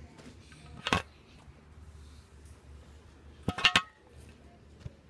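Phone handling noise: one sharp knock about a second in, then a quick cluster of three louder knocks with a slight clink around three and a half seconds in, over a faint low room hum.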